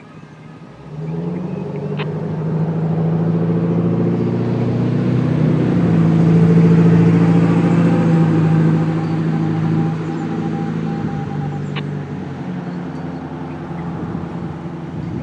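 A motor vehicle's engine running with a steady low hum. It comes in about a second in, grows louder to a peak around seven seconds, then eases off.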